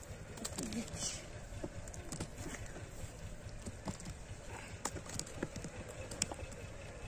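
A wooden stick jabbing and digging into a dry earth bank, giving irregular dull knocks and scrapes.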